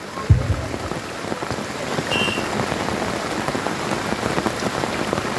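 Heavy rain falling steadily, a dense patter of drops, with a single sharp thump about a third of a second in.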